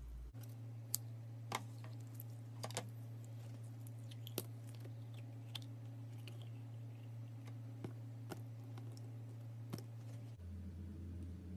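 Scissors cutting through a rubber stress ball, then the firm gel slime inside crunching and squishing as hands pull it out and handle it: scattered sharp clicks and crunches, several in the first three seconds, over a steady low hum.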